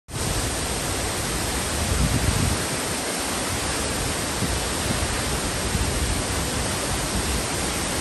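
A large waterfall in heavy flow, water pouring and crashing down in a steady, even rush. It is running very strong in this season, enough to throw drenching spray at anyone standing near.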